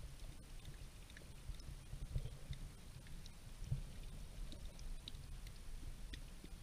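Stream water and current heard underwater through a waterproof camera housing: a muffled low rumble with faint scattered ticks, and two dull knocks about two and three and a half seconds in.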